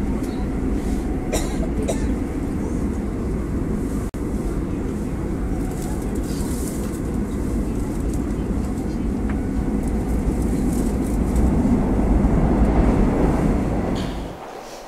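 Seoul Subway Line 9 train running through a tunnel, heard from inside the car: a steady rumble of wheels on rail that swells louder shortly before it cuts off near the end.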